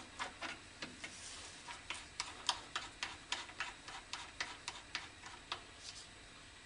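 Faint, irregular clicking, about three or four clicks a second, as the adjusting screw of a lathe fixed steady's rear rubbing block is wound in by hand; the clicks stop near the end.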